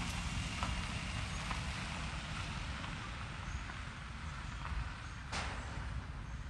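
Steady low outdoor rumble with a faint hiss over it, broken by one sharp click about five seconds in.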